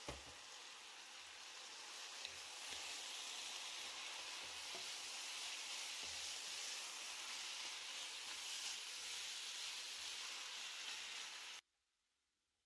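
Stir-fry of bean thread noodles, lily flowers and ground pork sizzling steadily in a hot frying pan. The sizzle cuts off abruptly near the end.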